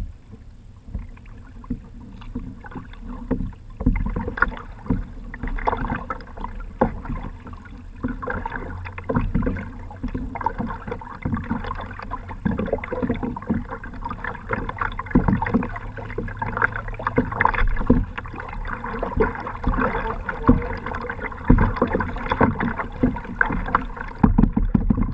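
Water slapping and splashing against the hull of a kayak moving through small, choppy waves, in an uneven run of splashes.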